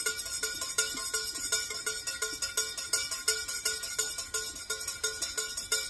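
A metal spoon clinking against a mug in an even rhythm, about four ringing clinks a second, stirring honey into coffee.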